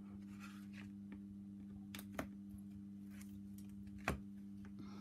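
Faint crackle of the backing being peeled off strips of red tape on grey board, with two short taps about two and four seconds in, over a steady low hum.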